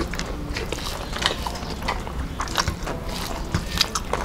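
Close-up eating sounds: chewing and lip-smacking on a mouthful of rice and curry, with fingers squishing and mixing rice on the plates, heard as quick irregular clicks over a steady low hum.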